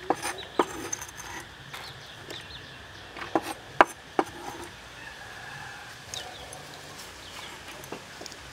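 Heavy kitchen cleaver knocking on a wooden cutting board while chopping chilies: a few sharp knocks in the first second and three more in quick succession about halfway through. Birds chirp faintly in the background.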